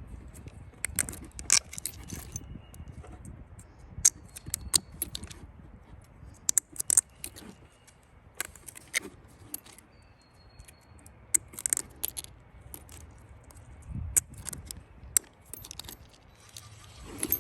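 Irregular sharp metallic clinks and jingles, some coming in quick clusters of two or three.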